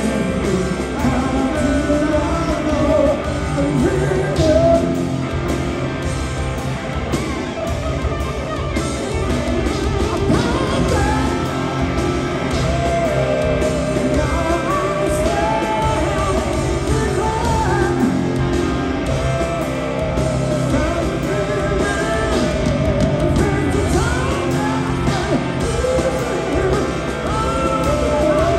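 Rock band playing live, with a sung vocal line over electric guitar, bass and drums.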